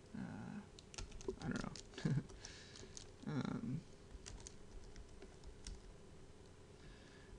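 Typing on a computer keyboard: quick clusters of key clicks in the first few seconds, then a few scattered single keystrokes. There are a few short, low murmured sounds among the clicks.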